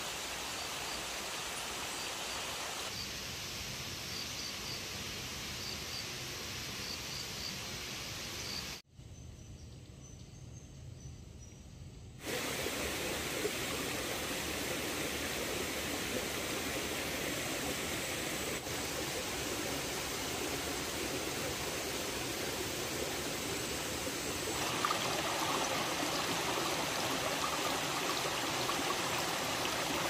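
A shallow stream running over rocks, a steady rush of water that gets louder near the end. Before it comes in, about a third of the way through, there is a softer outdoor hush with faint, repeated high chirps.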